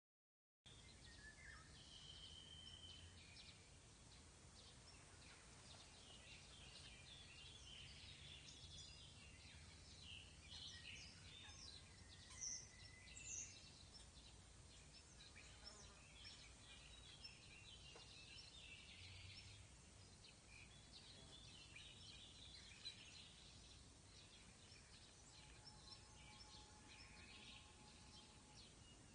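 Faint outdoor ambience with many short, scattered bird chirps and a few brief whistled notes over a steady low background hiss.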